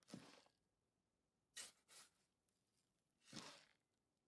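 Near silence, broken by three faint, brief, soft noises, one just after the start, one about one and a half seconds in, and one about three and a half seconds in.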